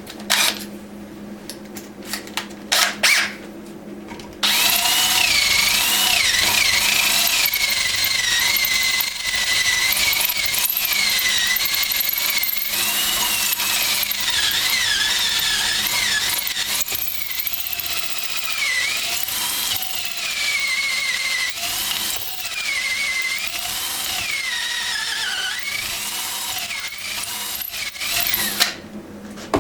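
A few sharp handling knocks, then a handheld power tool runs for most of the clip: a high motor whine that dips and recovers as it is loaded against the work. It stops suddenly near the end.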